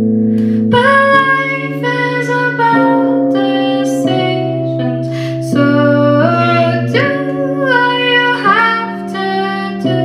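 A woman singing a melody over chords from a Nord Electro 3 stage keyboard. The voice comes in about a second in, and the held chords change every second or so.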